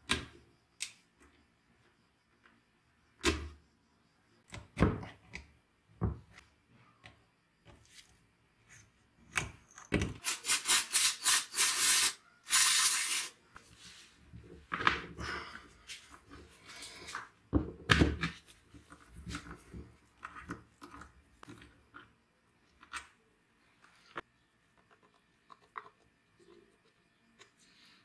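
Hand tools at work on an old chainsaw's stripped-down engine: scattered metal clicks and knocks, then about ten seconds in a quick run of rapid ratchet clicks as a socket is turned on the crankcase, followed by a few heavier clunks.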